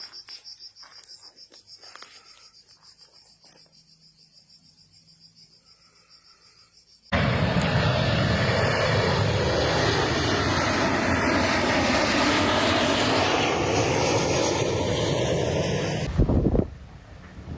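A firefighting aircraft passing low overhead, its loud engine noise starting abruptly about seven seconds in and cutting off near the end. Before it, quiet chirring of cicadas or crickets.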